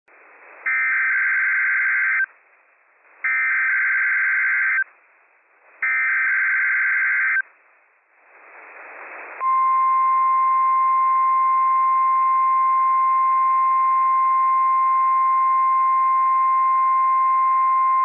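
NOAA Weather Radio Emergency Alert System broadcast: three short, buzzy SAME data bursts of header code, each about a second and a half, with radio hiss between them. After a swell of hiss, the steady 1050 Hz warning alarm tone starts about nine seconds in, sounded here as a required weekly test.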